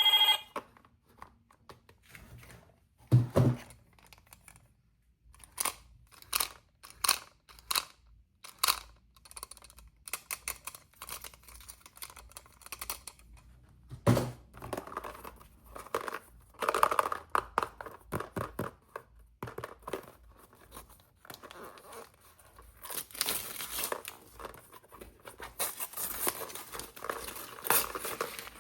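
Toy packaging being opened by hand: crinkling and tearing with many short clicks, two soft thumps, and denser rustling near the end.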